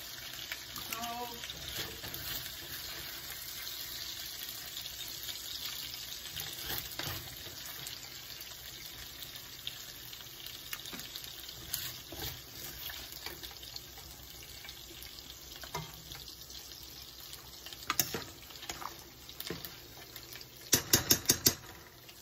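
Pot of rice porridge with chicken at a rolling boil, giving a steady bubbling hiss. Near the end comes a quick run of about five sharp taps.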